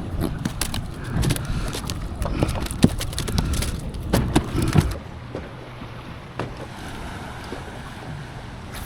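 Sharp knocks and clatter aboard a small fishing boat for about five seconds, then a steady hiss of wind and water.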